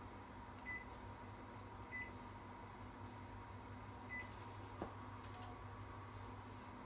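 Three short high-pitched beeps from a Panasonic microwave's control panel as its keys are pressed, over the faint steady hum of the oven running, with one click about five seconds in. The oven is faulty: on start it drops straight into its cool mode instead of cooking.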